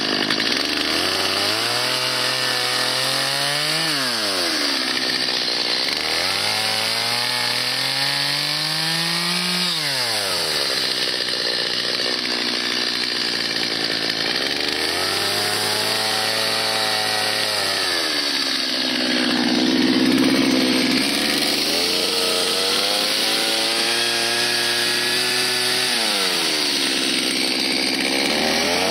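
Stihl chainsaw carving into a sassafras stump. Its engine pitch climbs over a few seconds and then drops back, about five times, as the chain works the wood.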